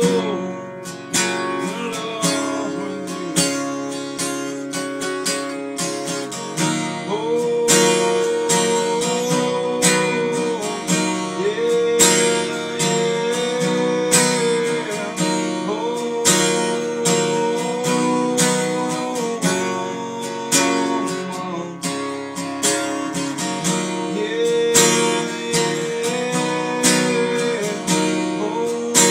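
Steel-string acoustic guitar strummed in a steady rhythm, with a man's voice singing held notes over it.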